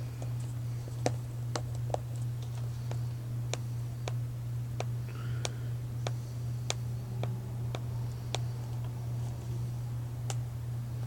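Irregular sharp clicks and ticks of a fingernail picking at a stubborn sticker on a plastic DVD case, over a steady low hum.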